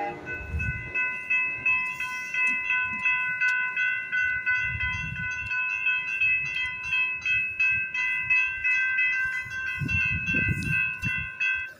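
Railroad grade-crossing bell ringing in rapid, evenly repeated dings, then cutting off suddenly near the end. Low rumbles sound underneath a few times.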